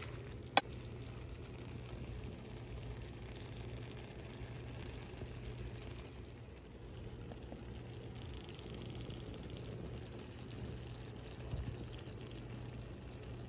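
Shrimp and green beans sizzling softly and steadily in a stainless steel frying pan, over a low steady hum, with one sharp clink about half a second in.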